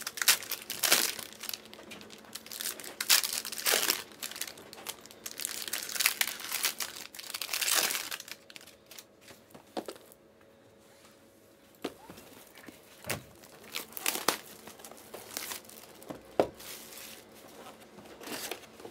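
Plastic card-pack wrappers crinkling and tearing as Panini Prizm hobby packs are opened and handled, in irregular bursts, with a lull about ten seconds in and a few sharp knocks later.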